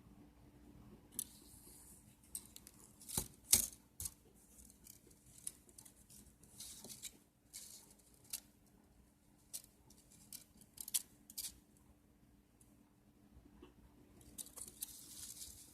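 Scattered light clicks, taps and short rustles of small objects being handled, the loudest a couple of sharp taps about three and a half seconds in.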